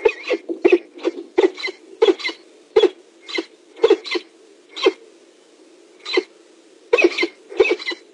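Peregrine falcon cacking: harsh, repeated 'kak' calls, in quick runs at the start and again near the end, with single spaced calls between.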